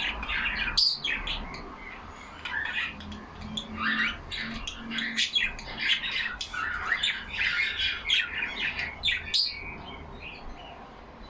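Several pet budgerigars chattering and warbling together in quick, overlapping chirps and squawks, thinning out near the end.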